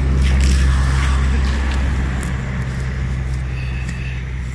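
A motor vehicle's engine running with a steady low hum, loudest about half a second in and then slowly fading away.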